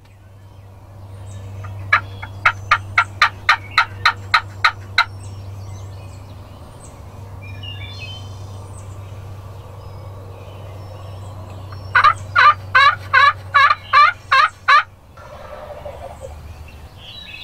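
Turkey yelping: a run of about a dozen quick, evenly spaced yelps a couple of seconds in, then a second run of about nine yelps near the end.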